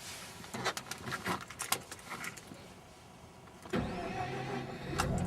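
A few scattered clicks and knocks. Then the Mazda RX-8's twin-rotor Wankel rotary engine starts abruptly nearly four seconds in and settles into a steady idle.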